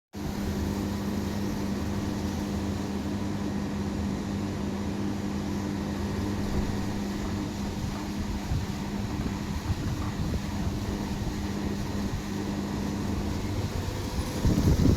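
Voltas window air conditioner running with a steady hum and drone. The hum's tones stop about a second before the end, as louder, rougher noise comes in.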